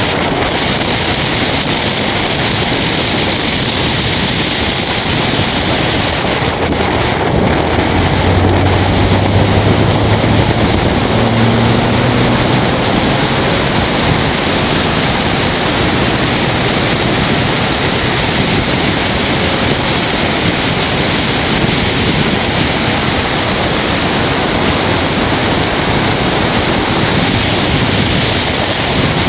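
Race car at speed on track, heard through a bonnet-mounted camera: a steady, loud rush of wind over the microphone covers most of the sound, with the engine's low note showing through faintly about eight to twelve seconds in.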